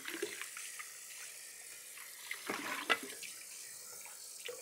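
Kitchen tap running into a sink as juicer parts are rinsed under it, with a few light knocks about halfway through and near the end.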